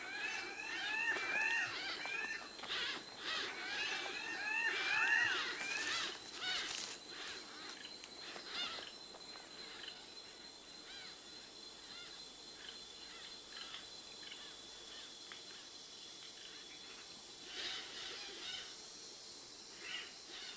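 Tropical rainforest ambience: birds calling in rapid runs of short, arched chirps for about the first six seconds, over a steady insect drone with a thin, high, steady whine. After that only the insect drone remains, with a few faint chirps near the end.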